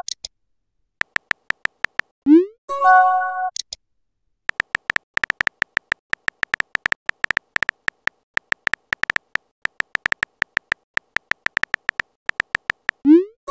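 Synthetic phone-keyboard key clicks from a texting-story app, with a rising swoosh and a short electronic chime chord as a message goes by about two seconds in. Then a long run of rapid key clicks as a message is typed out, ending in another rising swoosh just as the message is sent.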